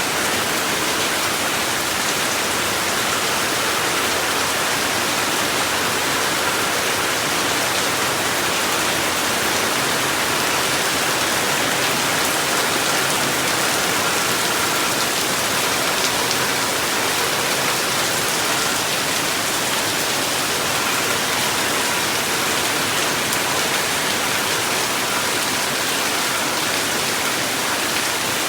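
Steady rain falling, an even hiss of drops that holds without a break.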